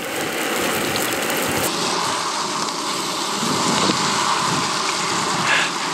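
Halloumi and cabbage leaves sizzling steadily as they fry.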